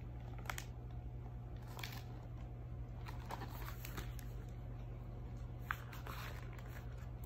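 Faint rustling and scattered soft clicks of handling noise close to the microphone, with one sharper click near the end, over a steady low hum.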